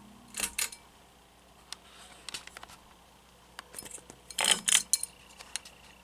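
Ceiling fan pull chains jangling and their switches clicking. A pair of clicks comes right at the start as the motor's low hum cuts off, and a louder jangle and click follows about four and a half seconds in. A faint steady high tone begins just after it.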